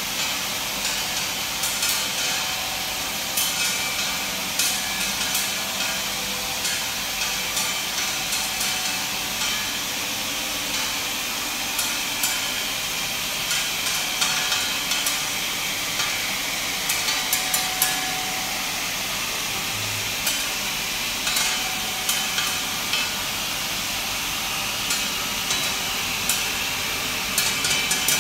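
Accura TCI pharmaceutical machine running on big flat tablets: a steady mechanical hiss with the tablets clicking and clattering irregularly throughout.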